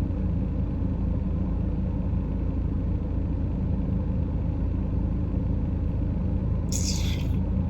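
Steady low rumble of a car's engine and road noise heard inside the cabin, with a brief hiss about seven seconds in.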